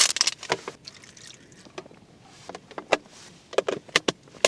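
Food containers and plastic wrapping being handled: rustling with a series of sharp clicks and taps, several in quick succession near the end.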